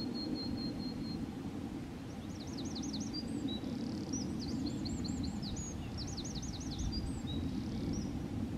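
A small songbird sings three short phrases of quick, repeated up-and-down notes, starting about two seconds in, over a steady low background rumble. A thin, high whistle is held for about a second at the start.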